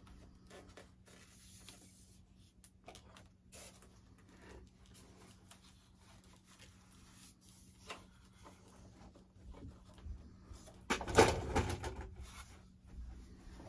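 Quiet handling sounds of hands working on a styrofoam model airplane: scattered small scrapes and clicks, then a louder burst of rustling and clicks about eleven seconds in, over a faint steady hum.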